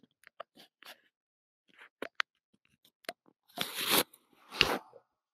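Hands pressing and kneading a person's upper back and neck through a shirt: scattered small clicks and crunches of skin and cloth, then two louder, longer rustles about three and a half and four and a half seconds in.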